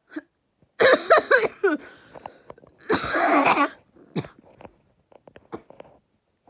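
A girl coughing loudly in two bursts, one about a second in with her voice audible in it and a harsher, breathier one about three seconds in, followed by a few faint short clicks.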